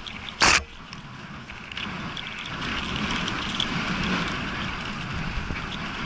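Mountain bike rolling fast down a dirt singletrack: a steady rush of tyre noise on dry dirt with small rattles and clicks, growing louder after about two seconds. A short, very loud noise about half a second in.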